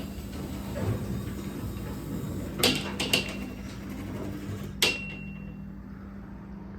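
Linear belt-drive garage door opener raising the door with a steady low motor hum. There are sharp metallic knocks from the door and track about two and a half, three and five seconds in; the first and last leave a brief ringing tone. After the last knock the running noise drops away.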